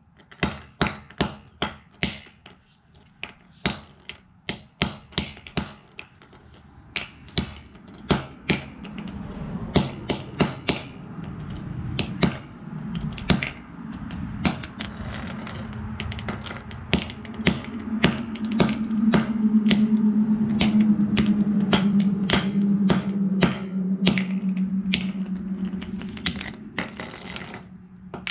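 Claw hammer repeatedly striking a small plastic Bluetooth speaker on a concrete floor: sharp knocks at about two a second. A low steady hum swells up in the background partway through and fades near the end.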